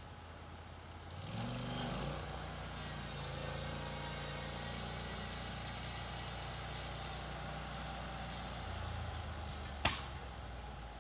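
Portable bandsaw sawmill's engine speeding up about a second in, its pitch rising, then running steadily at speed, with a single sharp knock near the end.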